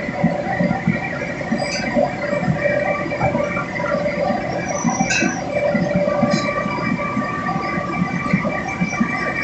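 Steady forging-shop machinery noise: a hum with several held whining tones over a low, uneven rumble, with a few faint metallic clinks.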